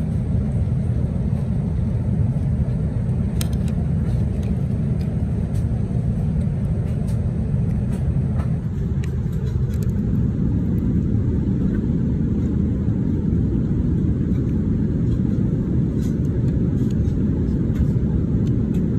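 Steady low cabin noise of an Airbus A380 in flight, its character changing slightly about halfway through, with a few faint clicks.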